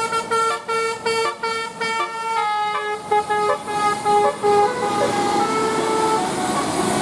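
Bus telolet basuri musical horn playing a quick tune of held notes that step up and down in pitch. After about five seconds the tune gives way to a wash of noise with fainter horn tones in it.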